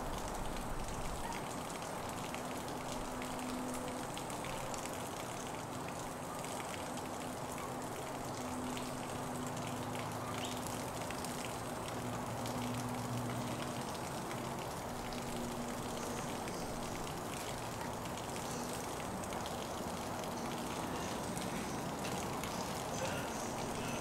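Steady monsoon rain falling on trees and grass, an even hiss with fine scattered drop ticks. A faint low hum comes and goes in the background during the first half.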